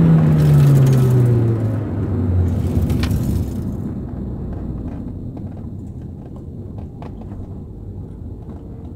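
In-cabin sound of a Nissan Pulsar SSS's SR20DE 2.0-litre four-cylinder, its note falling steadily as the car slows from about 80 km/h. The engine then settles into a quieter low rumble, with light clicks and rattles in the second half.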